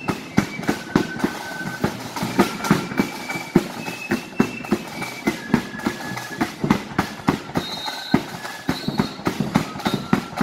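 Marching flute band playing a tune, high flutes carrying the melody over a steady march beat of drums.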